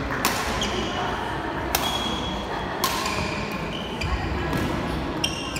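Badminton rackets striking a shuttlecock four times during a doubles rally: sharp smacks at uneven intervals, each ringing briefly, over a low murmur of voices in the hall.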